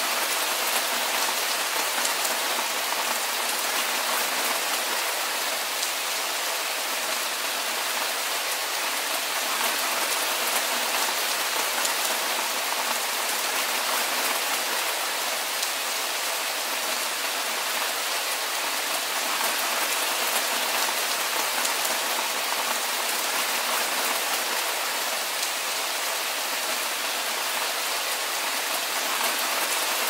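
Steady rain falling on a cabin roof: an even hiss with a fine patter of drops.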